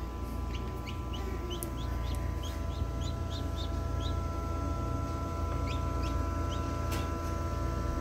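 Newly hatched chicks peeping inside an egg incubator: a quick run of short, high, falling peeps, thickest in the first half, with a few more near the end. A steady hum runs underneath.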